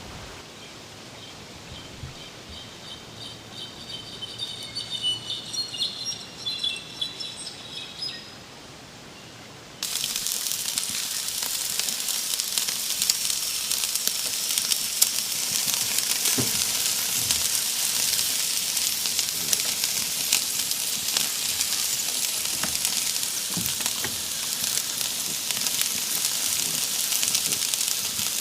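Forest birds chirping over a quiet background, then an abrupt cut about ten seconds in to chorizo sizzling as it roasts, a loud, dense hiss with scattered pops.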